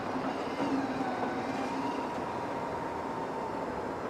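CrossCountry Class 170 Turbostar diesel multiple unit running away along the track: a steady engine and wheel-on-rail rumble, with a faint whine held at one pitch through most of it.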